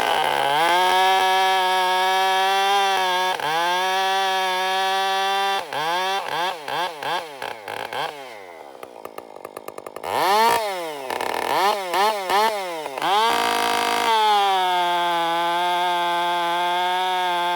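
Two-stroke chainsaw, fitted with a chain just sharpened with a file guide, running at high revs. The revs dip near 3 s, and from about 6 to 13 s the throttle is blipped up and down with a short spell at a low idle. It then holds high revs steadily again to the end.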